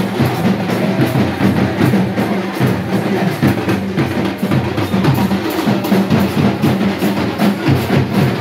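Festival drum ensemble playing a fast, unbroken rhythm of dense strokes, in the style of Tamil temple-festival drumming.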